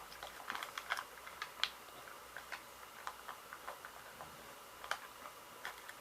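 Plastic packaging of a Mini Brands toy capsule being opened by hand: faint, irregular small clicks and crinkles, busiest in the first second and a half, then sparser.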